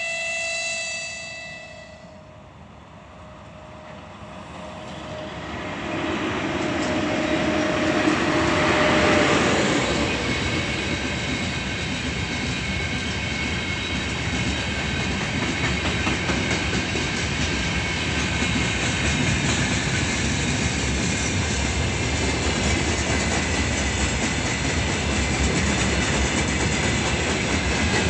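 A 3ES5K 'Ermak' electric locomotive sounds its horn once for about two seconds at the start, then passes close with a rising rumble, followed by the steady rolling clatter of a long train of freight gondola wagons.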